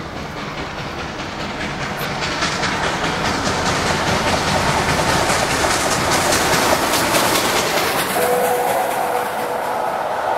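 LNER A4 class Pacific steam locomotive and its coaches approaching and passing at speed, growing steadily louder, with a rapid clatter of exhaust and wheels on the rails. From about eight seconds in, several steady tones sound together over the passing train.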